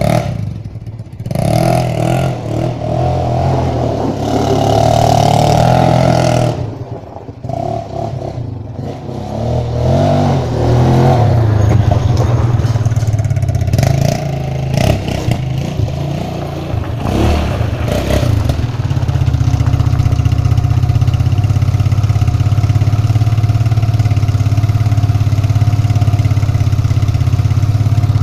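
Quad ATV engine revving and easing off as it is ridden hard over dirt, its pitch and level rising and falling. For the last third it runs steadily at one even speed.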